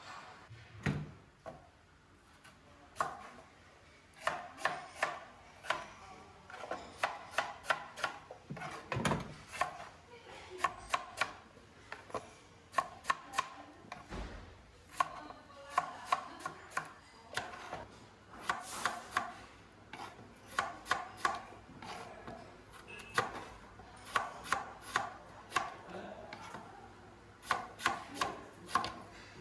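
A crinkle-cut knife chopping raw potatoes into wavy wedges on a wooden cutting board. Starting a few seconds in, there is an uneven run of sharp knocks of the blade on the board, about two a second.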